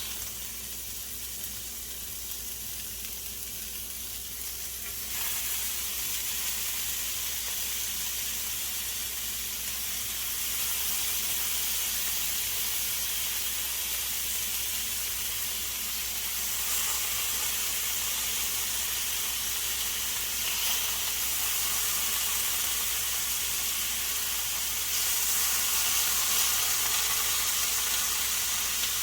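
Bacon sizzling and frying in a cast iron skillet: a steady, crackling hiss that grows louder in steps as the fat heats up.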